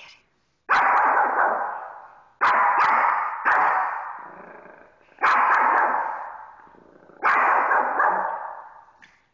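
Yorkshire terrier barking at a bearskin rug: about five loud, sharp barks, one every one and a half to two seconds, each ringing on and dying away slowly in a tiled room.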